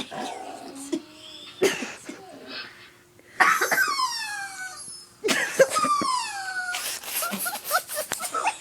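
Dogs barking and yelping in harsh bursts, with two drawn-out calls of about a second and a half, each falling in pitch, around the middle.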